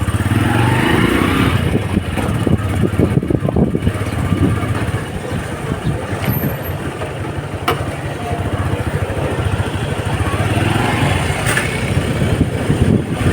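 Small Honda motorcycle engine running steadily while riding, with wind buffeting the microphone.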